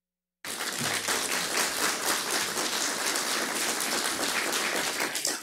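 Audience applauding: dense, steady clapping that starts suddenly about half a second in.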